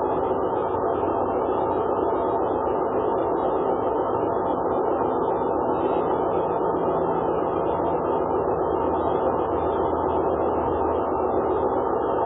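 Steady, unchanging rushing noise with a faint low hum underneath and no distinct events.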